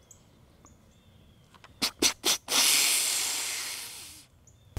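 A whitetail snort-wheeze, the buck's rutting challenge: three or four sharp snorts in quick succession, then one long hiss of breath that fades away. Faint high bird chirps come near the start and again near the end.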